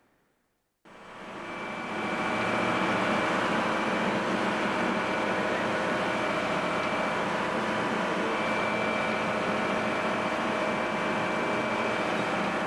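A boat's engine running steadily, heard from on board. It fades in about a second in after a brief silence and then holds an even drone.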